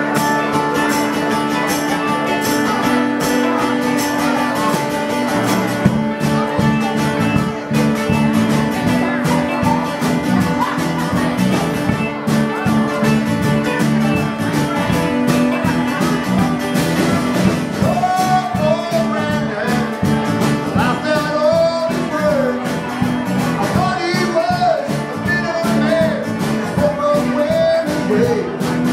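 Live country-rock band playing a steady strummed groove on acoustic guitar, mandolin, electric bass and drums. A wavering melody line comes in over it about two-thirds of the way through.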